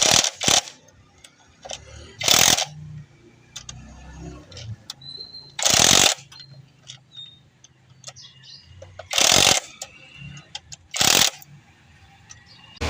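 Hand tools working on a diesel engine: a series of sharp metallic clicks and knocks, a few seconds apart, with fainter small ticks between them.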